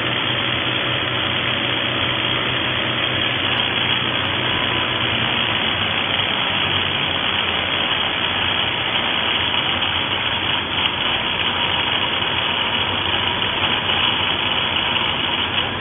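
Xcort XZC06-26 SDS-Plus corded rotary hammer running steadily in hammer-drill mode, its bit boring into rock.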